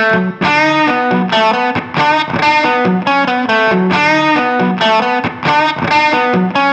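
Fender Telecaster on its bridge pickup played through an MXR Duke of Tone overdrive pedal: a rhythmic riff of picked notes and chords with a twangy, overdriven tone.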